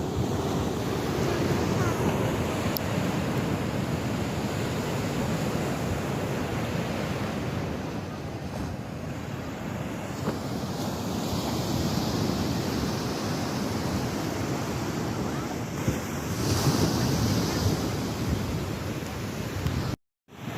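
Sea waves and surf washing, with wind buffeting the microphone; the noise swells and eases and cuts out for a moment near the end.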